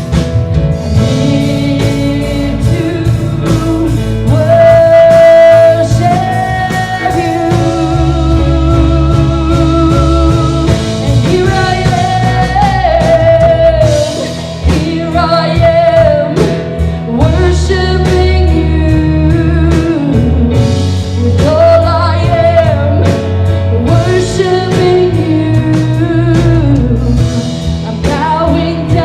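Live church worship band music with a singer holding long, wavering melody notes over the band.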